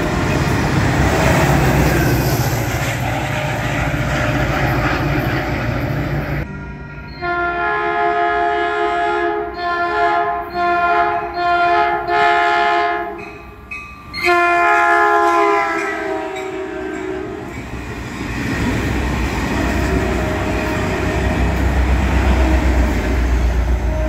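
Caltrain F40PH diesel locomotive sounding its multi-chime air horn as it approaches: a series of blasts from about 7 to 17 seconds in, ending with a long one. Before the horn, the rumble of a double-deck train moving off on the far track; near the end, the growing rumble and wheel clatter of the locomotive rushing past.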